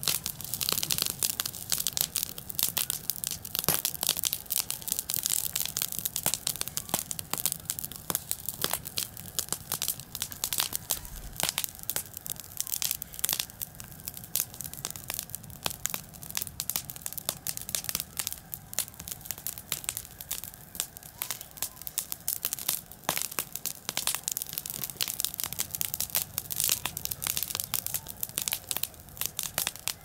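Dry grass and reed stems burning, crackling steadily with many sharp, irregular crackles.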